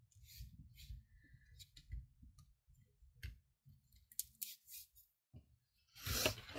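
Paper and craft supplies being handled on a work desk: a run of short rustles and clicks, busier near the end, as the ragged stamp-off sheet is being changed.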